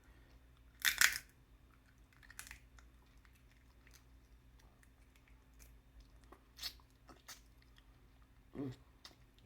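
Close-up eating sounds from a seafood boil: a few scattered sharp crunches and clicks of chewing and tearing at food, the loudest about a second in, with a short low hum of the eater's voice near the end. A faint steady hum sits underneath.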